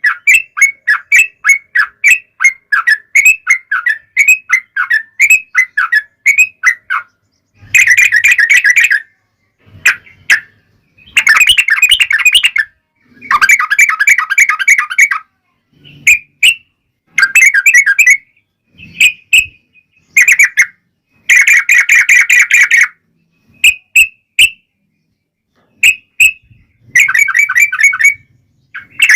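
Yellow-vented bulbul (trucukan) singing: first a quick run of short repeated notes, then long, dense bubbling chatter phrases of a second or two each, broken by short gaps and single calls.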